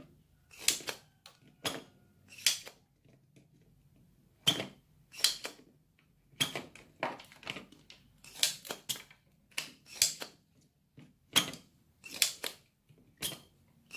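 Cheap spring-loaded desoldering pump (solder sucker) clacking again and again as its plunger is cocked and fired, sucking melted solder off the pins of a CRT tube-socket board: a dozen or more sharp clacks at uneven intervals.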